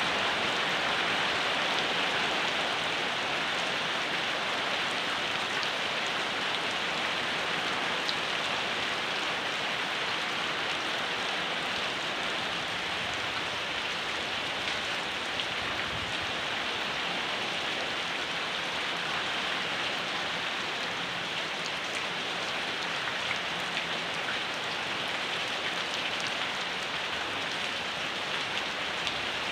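Steady rain falling, an even hiss of drops with scattered individual drips.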